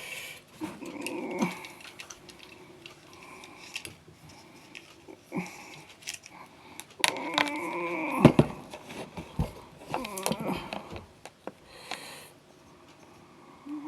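An animal vocalizing in several short pitched sounds that bend in pitch, mixed with scattered clicks.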